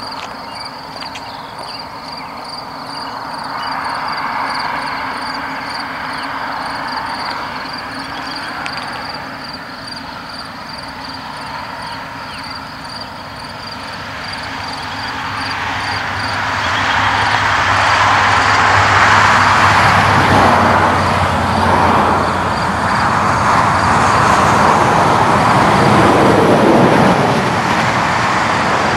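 Union Pacific intermodal freight train approaching and passing. A distant rumble grows louder from about halfway, with the locomotive's diesel drone coming in. Then comes a loud, steady rumble of the cars on the rails, which drops off right at the end.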